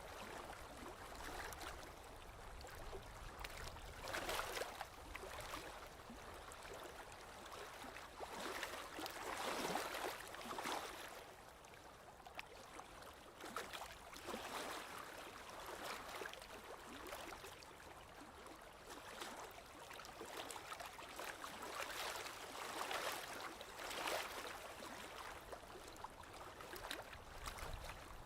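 Small waves lapping on a lake shore, soft splashes and washes swelling and fading every couple of seconds.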